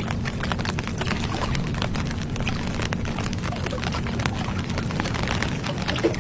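Close-up eating sounds: wet chewing and smacking with many small clicks and squelches, over a steady low hum.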